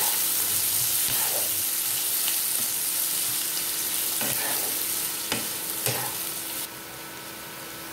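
Sliced onions frying in hot mustard oil in a nonstick wok, sizzling steadily while a wooden spatula stirs and scrapes them, with a few knocks of the spatula against the pan. The sizzle drops suddenly about a second before the end.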